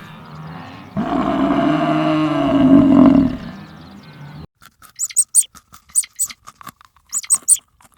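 An animal's long pitched call of about two and a half seconds, then a switch to quick, irregular clicking and crunching.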